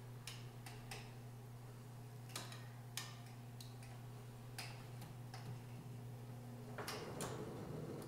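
Gree ceiling cassette air conditioner's motorised grille panel being wound back up into its frame: a faint steady motor hum with irregular clicks and ticks. The hum stops about seven seconds in, with a couple of clicks, as the panel closes.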